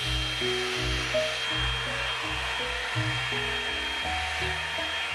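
Hot air brush running steadily, its blower giving a constant high whine and rush of air, over background music with a bass line on an even beat.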